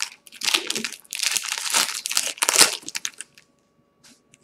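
Wrapper of a baseball card pack crinkling as it is torn open by hand, a rapid run of rustles for about three seconds that stops abruptly, followed by a couple of faint rustles.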